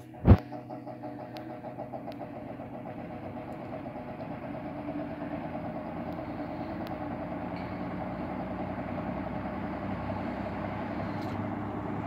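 Vintage Kenmore box fan switched on at low speed: a sharp click just after the start, then the motor's hum and the rush of the blades grow slowly louder as it spins up. The slow spin-up is normal for a fan of this age, and it runs without squeaking on its repaired motor bushings.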